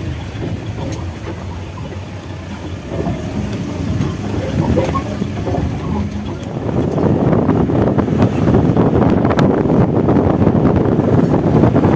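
A moving vehicle's road noise with wind rushing over the microphone, growing louder about halfway through.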